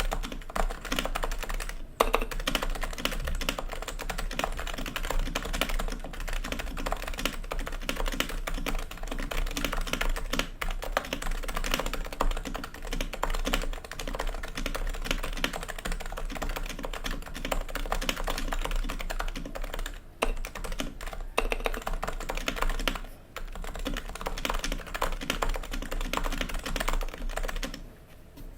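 Fast, continuous typing on a Topre-style keyboard: Realforce R2 electrostatic-capacitive internals with lubed purple sliders and 45 g rubber domes in a polycarbonate SRX case, no foam, stabilizers lubed. Dense keystrokes throughout, with one sharper stroke about two seconds in and short pauses about 20 and 23 seconds in.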